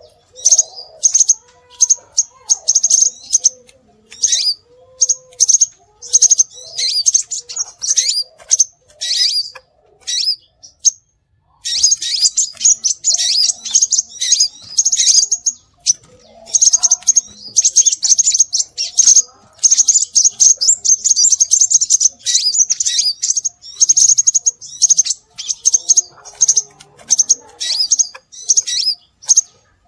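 Scarlet minivet song played as a bird-lure call: rapid, high, thin chirps in dense runs, broken by a short pause about ten seconds in.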